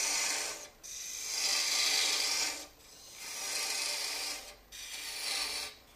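A 1/8-inch parting tool cutting into a mesquite goblet spinning on a wood lathe, parting it off at the base: a hissing, rasping cut in four strokes with short breaks between them.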